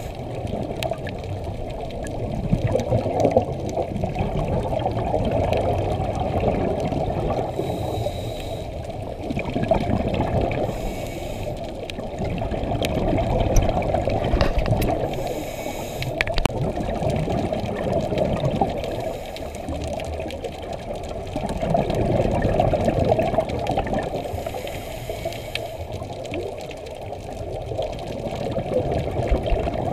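Scuba breathing heard underwater: exhaled bubbles from a regulator rush and gurgle in long swells every several seconds, with a short high hiss from the regulator between breaths.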